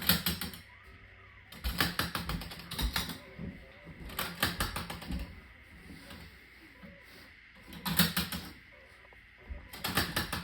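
Hard household objects being handled, clicking and rattling in short bursts several times, with quiet gaps between.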